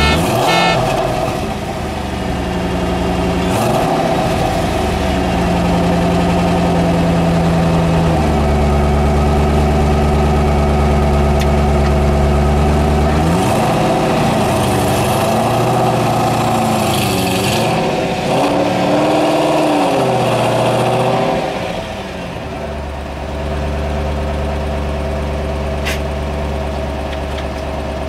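Hot rod car engines idling, with a deep steady note. In the middle the throttle is blipped several times, the pitch rising and falling with each rev, and the running note shifts abruptly a few times.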